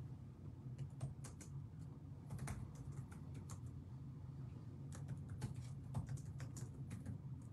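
Typing on a keyboard: irregular runs of sharp key clicks, a word typed and retyped over and over, over a low steady hum.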